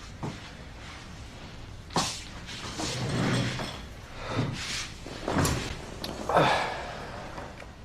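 A series of about six knocks and thuds with some scuffing noise between them, like a door or cupboard being handled.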